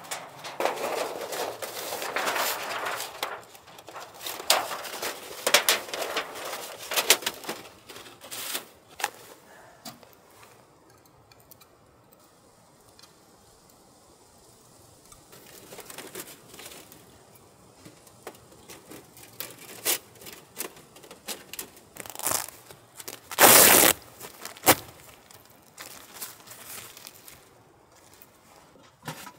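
Thin titanium sheet of a wood stove's roll-up flue pipe crinkling and rattling as it is handled and assembled, with many sharp metallic clicks. There is a quieter stretch in the middle, and one loud clack about three-quarters of the way through.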